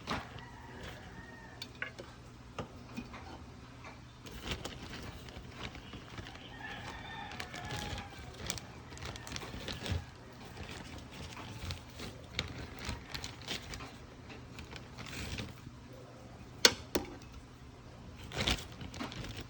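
A rooster crowing once, faint and distant, about a third of the way in, among scattered sharp clicks and knocks; the sharpest knock comes late.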